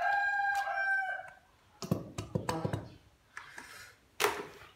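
A rooster crowing once: one long held call of about a second and a half, dropping in pitch at its end. A few light knocks and clicks follow.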